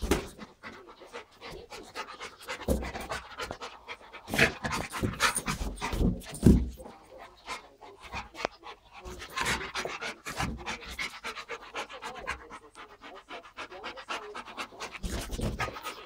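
Dog panting fast and hard as it plays, with several dull thumps as it noses and bumps an inflated latex balloon.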